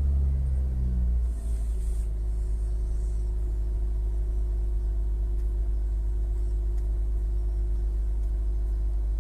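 2014 Nissan Sentra's 1.8-litre four-cylinder engine just after starting: it runs higher for about a second and a half, then settles into a steady idle. The owner complains of rough, hard starts when the engine is cold.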